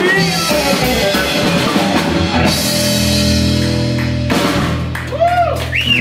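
Live band playing: drum kit, upright bass, guitar and singing. About halfway through the band holds a long sustained chord. Near the end a voice slides up and back down over it.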